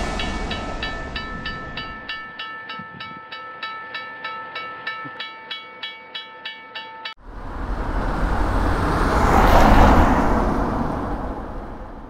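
A railroad crossing bell rings at about three strikes a second over the fading rumble of a train that has just passed. The bell cuts off suddenly about seven seconds in, and a loud rush of noise with a low rumble then swells and dies away.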